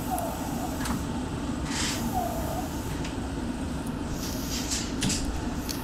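A Meitetsu electric train standing at a station, its onboard equipment giving a steady low hum. A short hiss comes about two seconds in, and a few sharp clicks near the end.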